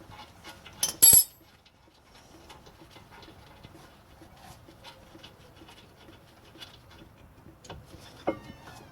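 Hand tools at work on a car's rear brake caliper: two loud sharp metal clanks about a second in, then light scattered clicks and ticks, with another sharp clack near the end.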